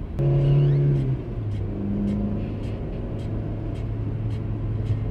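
Steady car cabin drive noise: engine and road rumble heard from inside the moving car. Just after the start a low droning tone sets in abruptly, then steps down to a lower steady drone about a second in, with faint ticks about twice a second.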